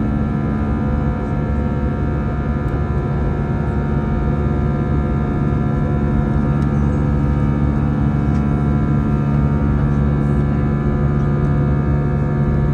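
Airbus A320 turbofan engines running steadily in the climb, heard inside the cabin beside the engine: a constant low rumble with several steady whining tones layered over it.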